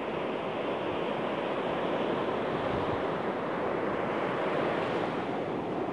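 Sea surf washing onto the beach, with wind buffeting the microphone: a steady rushing noise.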